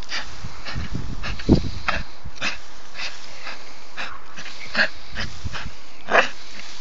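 American Staffordshire terrier hanging by its jaws from a dry tree branch and tugging at it, making dog sounds as it strains. The shaken branches rattle and rustle in many short scratchy strokes, with a dull thump about one and a half seconds in.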